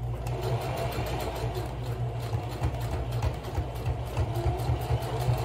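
Electric sewing machine running steadily: a motor hum with rapid needle clatter as it top-stitches across the edge of a cotton bag.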